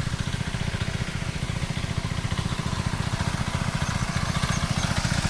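Diesel 'shallow machine' pump engine running steadily with a rapid, even beat, pumping water out to drain a fish pond.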